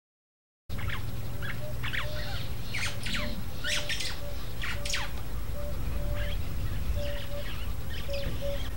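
Birds calling in the bush: many sharp, steeply sweeping chirps and squawks, with a short low whistled note repeated over and over, above a steady low rumble. The sound cuts in suddenly under a second in.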